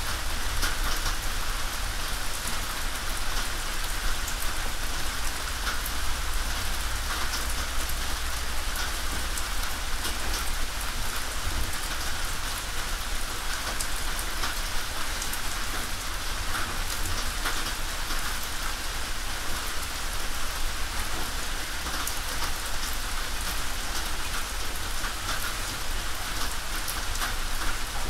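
Steady rain falling on a tin roof: a dense hiss of rain with many separate sharp drop strikes on the metal, and a steady low rumble underneath.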